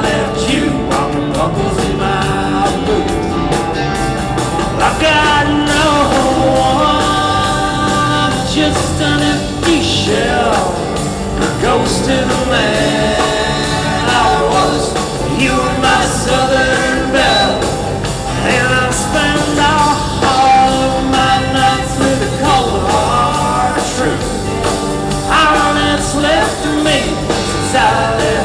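A country song plays: a full band with singing voices.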